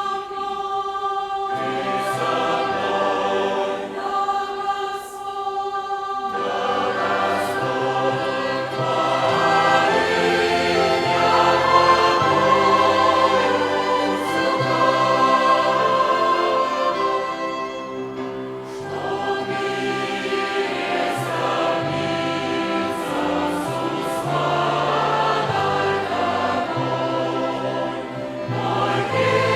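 Church choir singing a hymn in several parts, accompanied by a violin ensemble; the lower parts come in about six seconds in.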